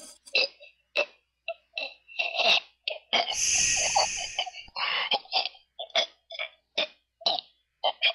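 Voice-made comic sound effects: a string of short coughing, sputtering noises, about two a second, with a longer hissing burst about three seconds in.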